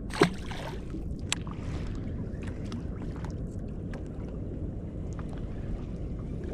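A released sand bass hits the water with a single sharp splash just after the start. After that, steady wind and water lap against the boat, with a sharp click about a second in and a few faint ticks.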